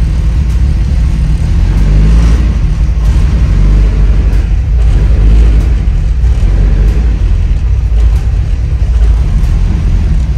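Turbocharged Honda LS VTEC engine idling, loud and low, and running badly on a very lean air-fuel mixture.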